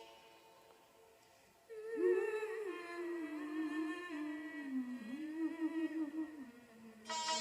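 Dangdut song recording: an instrumental phrase fades out, then a woman hums a wordless, wavering melody for about five seconds, ending on a long lower note. The band comes back in loudly just before the end.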